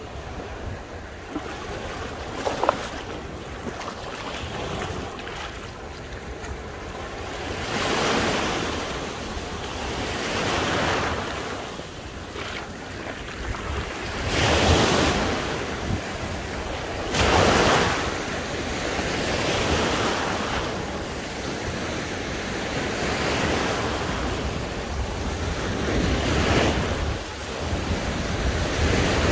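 Sea waves washing onto the beach, the surf swelling and fading every few seconds, with wind rumbling on the microphone. A single sharp click about three seconds in.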